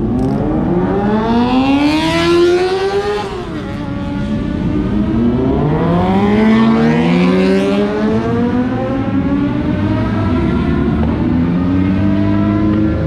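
Sportbike engines revving and accelerating, pitch climbing from the start, dropping sharply a little over three seconds in, then climbing again and holding high.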